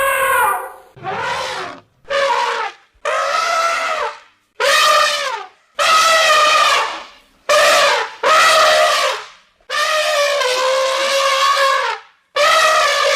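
Elephant trumpeting: about ten loud blasts, each between half a second and two seconds long, with short breaks between them. Many of them drop in pitch as they end.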